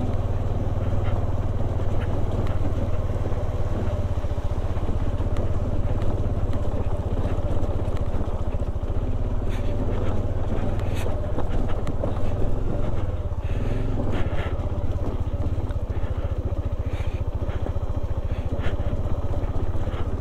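Bajaj Dominar 400's single-cylinder engine running steadily at low revs as the motorcycle picks its way down a rough, rocky track, with scattered clicks and knocks from the loose rock under the tyres, thickest around the middle.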